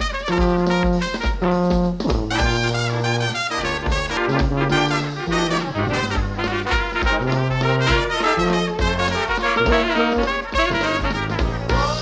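Upbeat background music led by brass instruments, with held horn notes over a steady beat.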